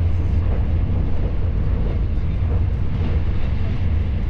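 Steady low rumble and hiss of a vehicle in motion, unchanging throughout.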